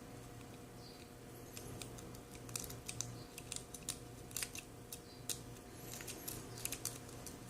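Faint, irregular metallic clicks and ticks of a pick and tension wrench working the pin stack of a Best seven-pin padlock held in hand. The clicks come more often from about two and a half seconds in.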